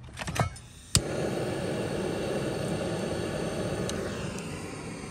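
Split firewood knocking as it is set in place, then a sharp click about a second in and a steady rushing hiss for about four seconds as the fire is lit. The hiss thins out near the end and stops abruptly.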